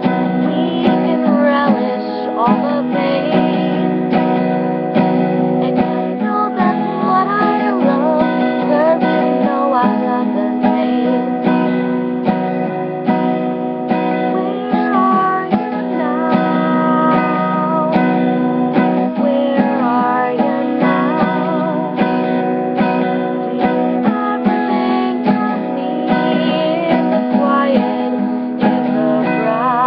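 Steel-strung acoustic guitar strummed steadily, with a woman singing along.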